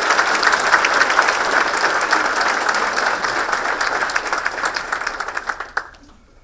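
Audience applauding, a dense clatter of many hands that thins out and stops abruptly near the end.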